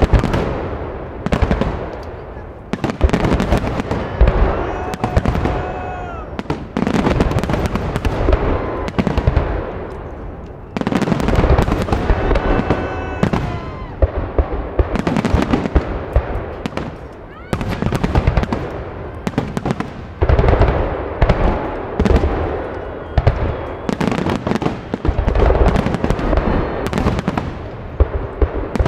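Aerial fireworks salute: shells bursting overhead in rapid volleys of loud booms, one salvo after another with barely a pause between them.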